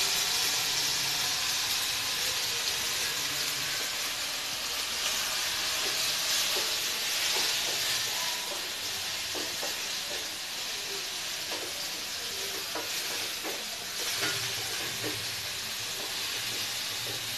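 Chopped onions, green chillies and curry leaves sizzling steadily in hot oil in a stainless steel kadai as they brown. A wooden spatula stirs them, with light scattered taps against the pan in the second half.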